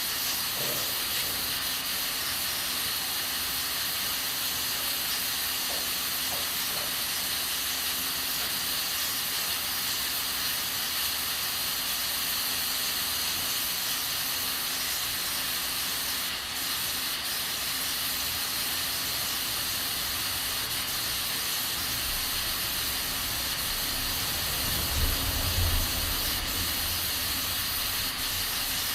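Aluminium pressure cooker on a gas stove hissing steadily as steam escapes past its weight valve while beans cook under pressure. A brief low rumble comes in near the end.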